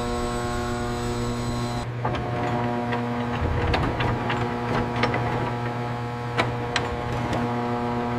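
Steady electrical machine hum with a buzzy pitched tone. About two seconds in the tone shifts and scattered sharp metallic clicks and ticks begin, with two louder clicks near the end.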